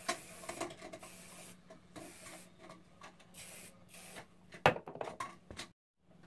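Aerosol hairspray can sprayed in several short hissing bursts, one lasting about a second. Later comes a loud sharp knock followed by a few smaller clicks.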